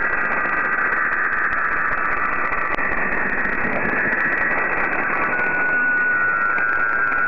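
Shortwave digital-mode data transmission received in AM on 9400 kHz, heard as a dense hiss of overlapping high whistling tones over static. A single steady whistle settles in about five seconds in.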